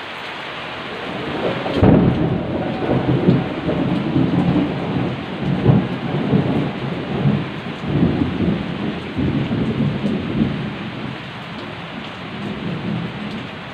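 Rain falling steadily, and about two seconds in a thunderclap breaks out and rolls on as rumbling thunder in waves for several seconds before dying down, with a softer rumble near the end.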